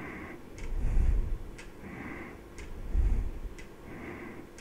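Sharp ticks, evenly spaced about once a second. A low thump with a soft rustle comes roughly every two seconds and is louder than the ticks.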